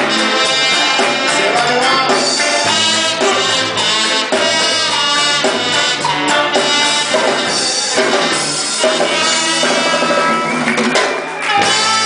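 Music with brass, drums and singing, playing steadily with a short dip in loudness near the end.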